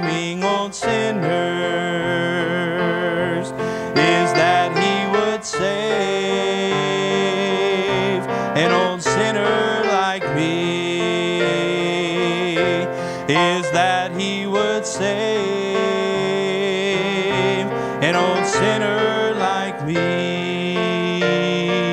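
A man singing a gospel song with piano accompaniment, his voice wavering with vibrato on held notes.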